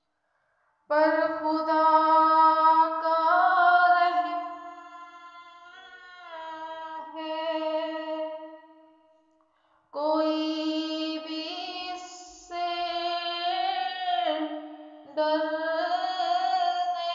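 A woman singing slow, melodic phrases with long held notes. She starts about a second in and pauses briefly about halfway through before going on.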